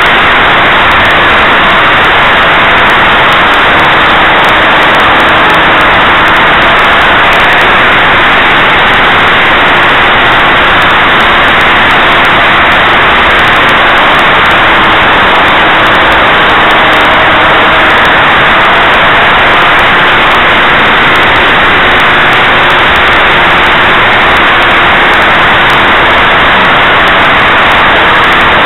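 O.S. 49-PI Wankel rotary model engine running steadily in flight, heard through the onboard camera's microphone as a loud, harsh, saturated buzz with wind rush. Its pitch shifts only slightly.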